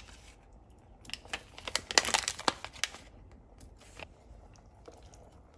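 Thin plastic curry-roux tray crinkling and crackling as the roux blocks are pushed out of it, a burst of about two seconds. A few light knocks follow.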